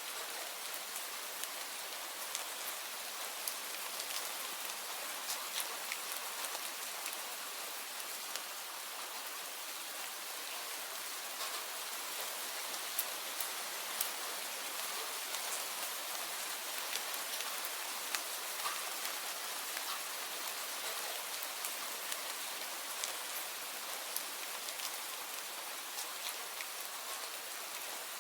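Steady rain, an even hiss with frequent sharp patters of individual drops hitting a surface.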